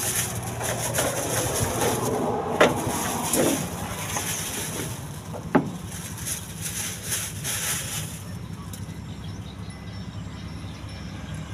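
Low steady wind rumble on the microphone, with plastic bags rustling. Two sharp knocks, about two and a half and five and a half seconds in, come as a plate and a bottle are set down on wooden planks.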